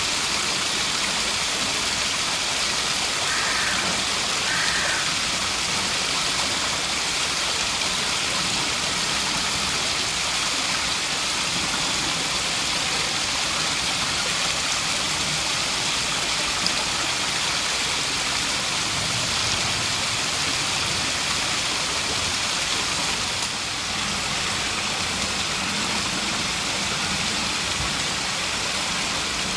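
Steady rushing of water from a small waterfall falling over rocks into a pool: an even hiss with no breaks.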